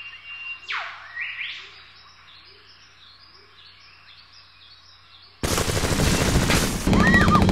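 Birds chirping over a quiet outdoor ambience, then about five seconds in a sudden loud burst of rapid gunfire breaks in and keeps going.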